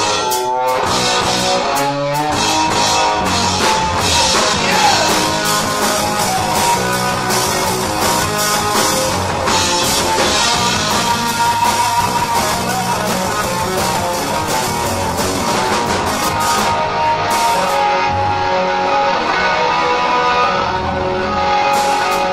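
Rock band playing live and loud: electric guitar and bass guitar over a drum kit. The cymbals drop away for the last few seconds while guitar and bass carry on.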